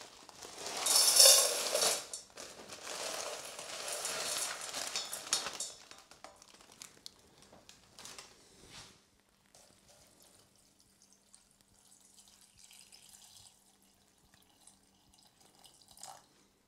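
Dehydrated rice, chicken and curry sauce tipped from plastic bags into a stainless steel saucepan: a loud rush of dry pieces rattling into the pan with bag crinkling for about five seconds, then quiet handling, and water starting to pour in near the end.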